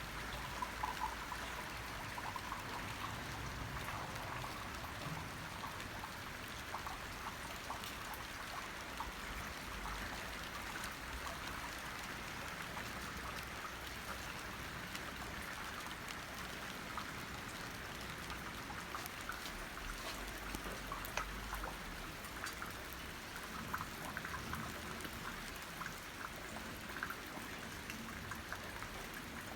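Steady rain falling, with many small drops striking and water trickling continuously.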